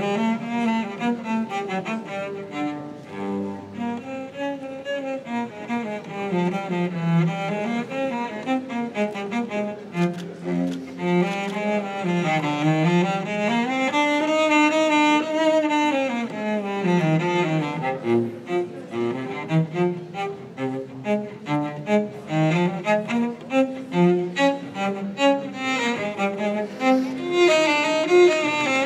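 Cello playing a slow melody with long notes that slide up and down in pitch.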